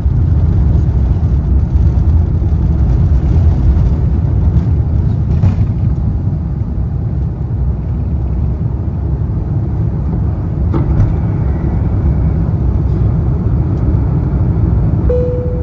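Airbus A350-900 airliner cabin noise: a loud, steady low rumble of the engines and airframe heard from a passenger seat. A short, steady tone sounds near the end.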